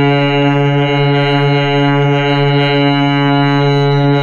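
Harmonium holding a single steady note, Sa at C sharp, with its reedy tone unchanged. It is the drone for humming practice.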